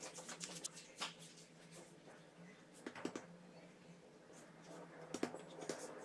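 Faint handling sounds of a silicone brush and fingers working a thin sheet of dough on a silicone baking mat: light scraping with a few soft taps, over a faint steady hum.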